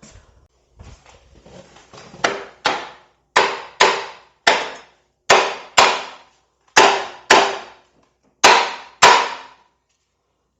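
Rubber mallet tapping a Harley-Davidson inner primary housing to knock it loose: about a dozen sharp knocks, mostly in pairs, each with a short ring, starting about two seconds in. The housing stays stuck because the starter bolts are still in.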